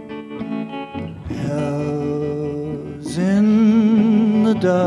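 A man singing slow, long-held notes over plucked guitar. About three seconds in his voice rises into a louder held note with a wavering vibrato.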